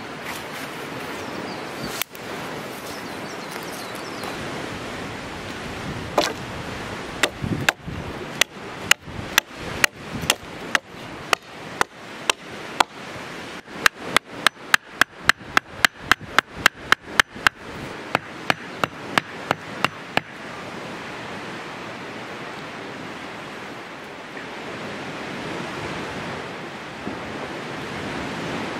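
A hand tool striking repeatedly and sharply, beginning about six seconds in and stopping about twenty seconds in. The strikes quicken to about three a second in the middle. A steady rush of outdoor background noise runs under them.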